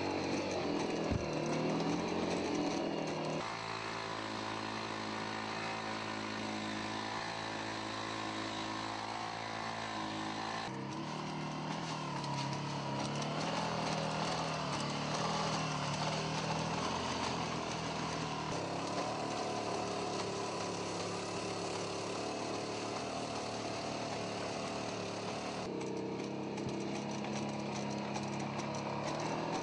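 Four-legged robotic pack mule (DARPA LS3-type) walking, its onboard engine and hydraulic power unit running with a steady, buzzing drone like a chainsaw. The drone changes pitch abruptly several times where the footage is cut.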